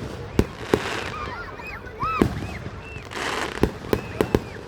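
Fireworks bursting overhead: a string of sharp bangs at uneven intervals, several in quick succession near the end. Many short whistles that rise and fall overlap the bangs.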